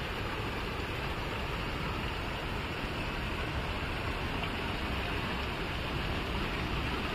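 Water jets of the Potop (Deluge) fountain spraying over its sculpture and splashing into the basin: a steady rushing hiss.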